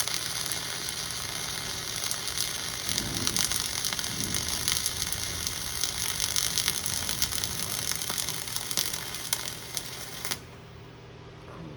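Flux-core welding arc burning steadily through a vertical-up filler pass on a T-joint, a dense hiss with fine crackle that cuts off abruptly about ten seconds in when the arc is broken. There is little popping, which the welder takes as a sign the weld was getting in well with good angle and travel speed.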